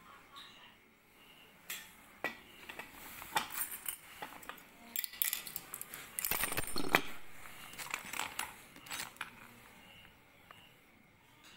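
Metal clinking and clattering, like a steel utensil being handled: a run of sharp clicks and knocks, most dense and loudest about six to seven seconds in.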